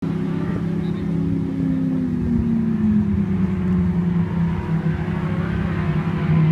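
Ferrari F430's V8 engine idling. Its revs ease down over the first few seconds and then hold steady.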